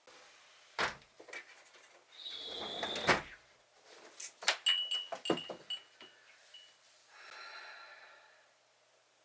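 Household handling sounds: a thunk, a door or cupboard being worked, then a run of clicks with several short high ringing notes.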